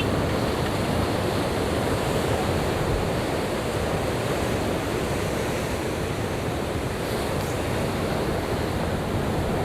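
Heavy sea surf, a steady rush of breaking waves, with wind buffeting the microphone.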